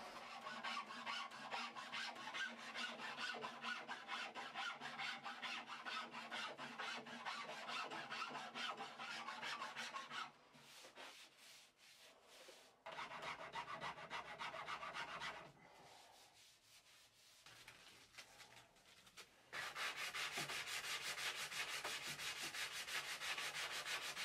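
Hand tool scraping and abrading the back of a wooden guitar neck as it is shaped. There are three spells of quick back-and-forth strokes, with short pauses after about ten seconds and again after about fifteen seconds.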